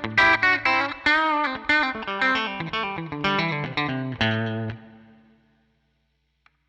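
Electric guitar with Zexcoil Legacy Signature P90-format pickups switched to coil-cut, played through a Helix Twin Reverb amp model. A quick run of picked notes with string bends ends on a held note that rings out and dies away about five seconds in.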